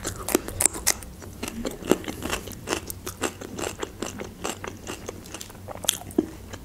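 Close-miked chewing of a piece of fresh cucumber: a rapid, uneven run of crisp, juicy crunches.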